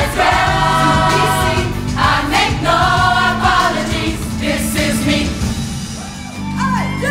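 Mixed choir singing long held chords over a band backing with drums and bass; about six seconds in, the backing changes and a wavering vocal line enters as the music moves into another piece.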